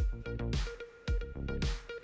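Background electronic music with a steady beat of about two thumps a second.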